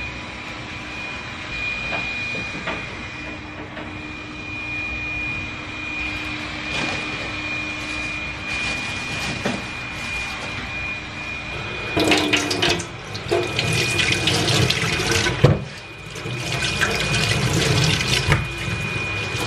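Kitchen tap running into a sink while something is rinsed under the stream, in the last few seconds. Before that come clattering and knocks, with one sharp knock, and earlier still a steady low hiss with a thin high whine.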